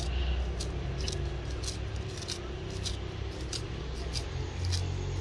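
Kitchen knife slicing scallion held in the hand, cut against the thumb, giving short crisp snips about two to three a second over a low steady rumble.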